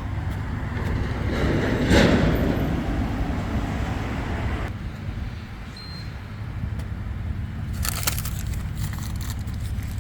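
A motor vehicle running with a steady low rumble. The noise swells loudest about two seconds in and then fades. A few sharp clicks come near the end.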